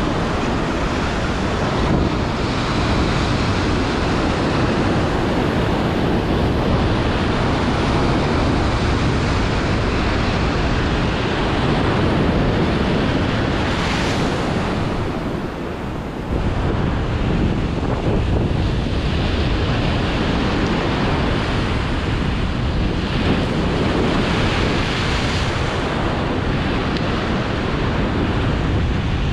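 Heavy surf breaking and washing on the shore, with strong wind buffeting the microphone in a loud, steady rumble.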